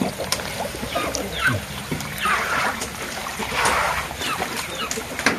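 Water splashing and dribbling as small fish fry are scooped from a net with a plastic bowl and tipped into a basin of water, with indistinct voices talking.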